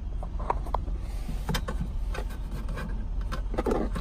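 A series of light clicks and knocks of plastic trim being handled in a pickup's center console storage bin, with a quick cluster of them near the end, over a steady low rumble.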